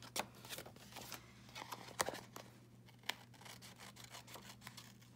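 Scissors trimming around paper: a run of short, crisp snips and paper handling, thickest in the first three seconds and sparser after.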